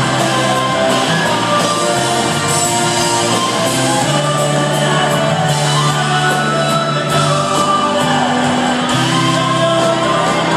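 Live rock band playing loudly, with electric guitars, bass, drums and keyboards and singing over it, heard from the audience in a large hall.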